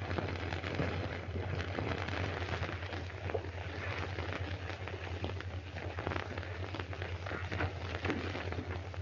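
Background noise of an old optical film soundtrack: steady hiss and low hum, with a scattering of faint crackles and clicks.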